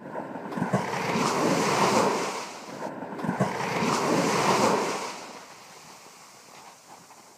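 Small surf waves breaking and washing up a sandy beach: two surges of wash, the second dying away about five seconds in, then a quieter lap of water.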